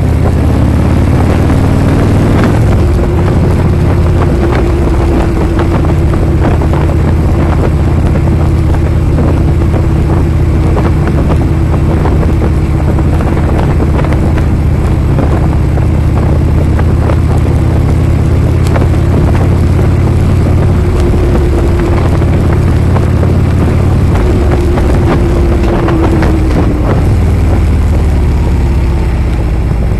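Harley-Davidson V-twin engine running at a steady cruise, with wind rushing over the microphone. The engine note holds steady and then falls near the end.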